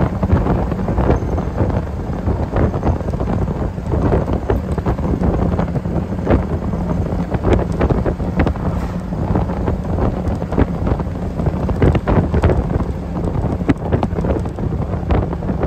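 Wind buffeting the microphone of a moving open-top MG TD roadster, irregular and gusty, over the steady low drone of its four-cylinder engine.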